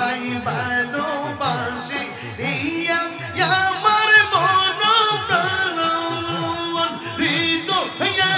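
Devotional zikir singing: a single voice sings long, held, wavering lines over a steady low pulse of about three beats a second.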